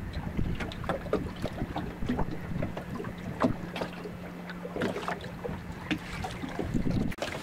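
Choppy lake water slapping and splashing against a small fishing boat's hull, with wind buffeting the microphone and a steady low hum underneath.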